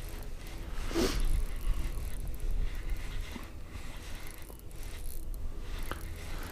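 Spinning reel being cranked steadily with its gears whirring and clicking as a hooked fish is reeled up on a bent ice rod, with a sharp knock about a second in.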